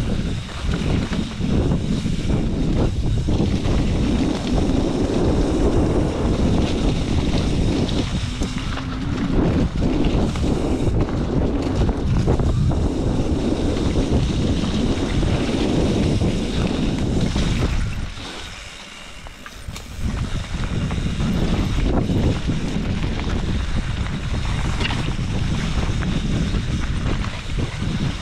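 Heavy wind buffeting the microphone over a vehicle on the move. It drops away for a couple of seconds about two-thirds of the way through.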